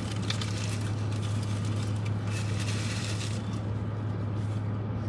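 Steady low hum under a faint background noise, with no speech.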